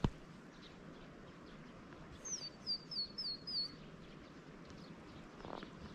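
A small bird calling: a quick series of five high chirps, each sliding down in pitch, about two seconds in.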